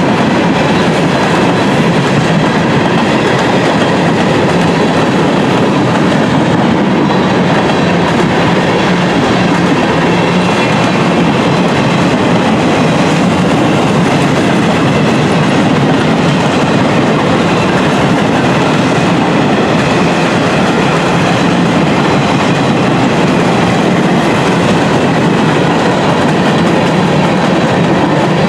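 Train cars rolling past at close range, a loud, steady rumble and clatter of wheels on the rails.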